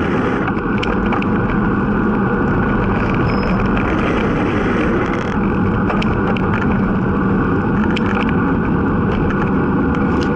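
Steady rush of wind over a bicycle-mounted camera's microphone on a fast road descent, with scattered short clicks.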